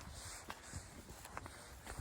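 Footsteps of a person walking through a field at a steady pace, a soft low thud with each step, a little under two steps a second.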